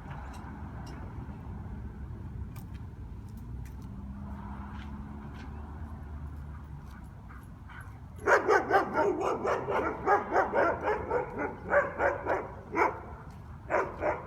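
Guard dogs barking loudly and rapidly, several barks a second, starting about eight seconds in and keeping on without let-up. Before that there is only a low steady rumble of street traffic.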